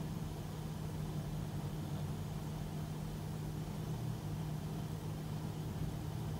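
Steady low hum over a faint background hiss, with no change.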